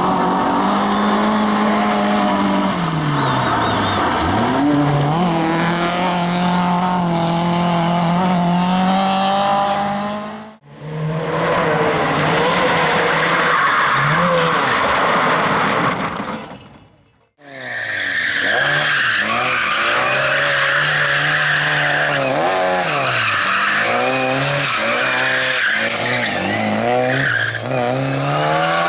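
Competition car engines at high revs, the pitch climbing and dropping with gear changes and lifts off the throttle, in three separate shots cut together about ten and seventeen seconds in. In the last shot a steady high squeal sits over the engine, from tyres sliding.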